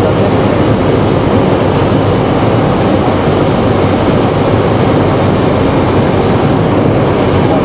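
Cessna Caravan floatplane's turboprop engine and propeller running steadily, heard from inside the cockpit as a loud, even noise.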